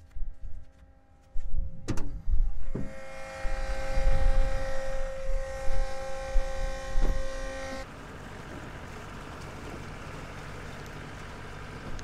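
Farm machinery engine running with a steady whine over a low rumble; about eight seconds in the sound changes abruptly to a steadier, even engine noise.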